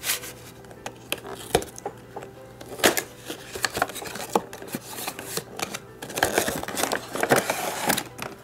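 Cardboard miniatures booster box being opened by hand: a string of clicks, taps and scrapes as the flap is pried and pulled back, with a thicker stretch of rustling and scraping about six to eight seconds in.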